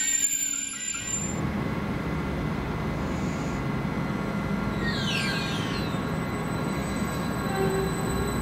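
A train passing on the rails: a thin, high wheel squeal for about the first second, then a steady low rumble of wheels on track.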